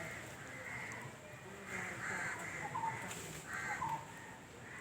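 Crows cawing, several harsh caws in a row.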